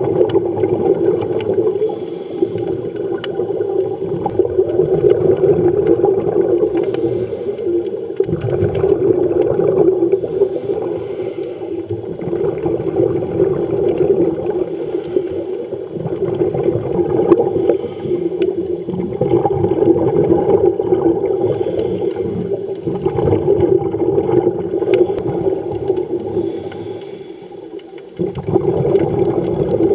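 Muffled underwater sound picked up by a camera in its housing: a steady rush of water that swells and eases every few seconds.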